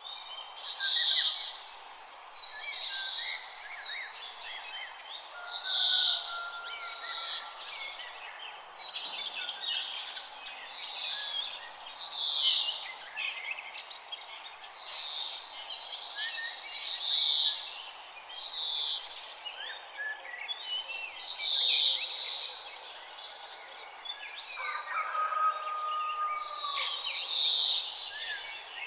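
Several songbirds singing. One bird repeats a loud, high, falling phrase about every five seconds, with softer chirps and calls from others between, over a steady background hiss.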